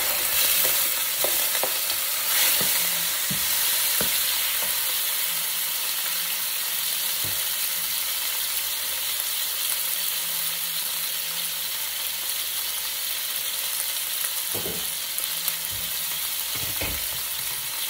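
Raw chicken strips sizzling in hot oil in a pan as they brown: a steady frying hiss, with a few light knocks now and then.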